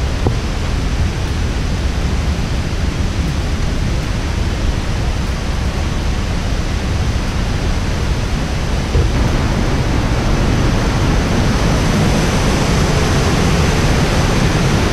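Rushing whitewater of a river cascading over rocks, a steady roar that grows louder about nine seconds in.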